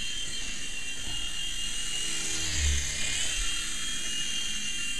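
Small indoor remote-control helicopter in flight, its electric rotor motors giving a steady high whine. The pitch sags briefly about halfway through and climbs back, with a dull low bump at the same moment.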